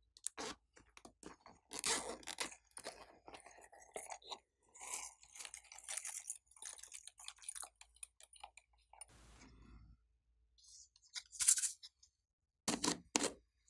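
Slime crackling and squishing in irregular clusters as a silicone pop-it toy is pressed into it, with a brief rustle about nine seconds in and sharper crackles near the end.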